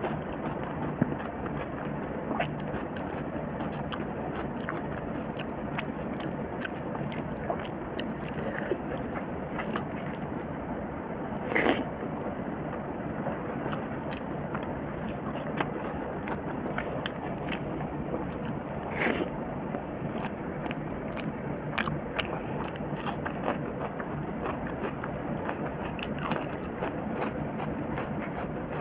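Close-miked eating sounds: fingers mixing and scooping rice and curry on a stainless steel plate, and chewing, as many small wet clicks and scrapes over a steady hiss. Two louder clicks stand out, about a third and two thirds of the way through.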